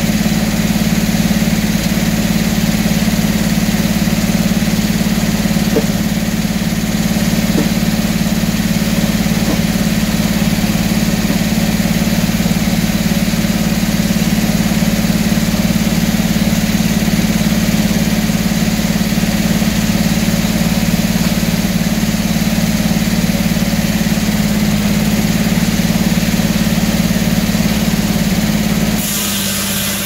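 Circular sawmill running between cuts, its big blade spinning free and its power unit giving a loud, steady drone. About a second before the end the sound changes and a bright hiss comes in as the carriage feeds the oak into the blade.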